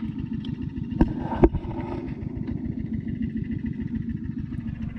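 A small engine running steadily with a fast, even chugging beat, and two sharp knocks about a second in, half a second apart.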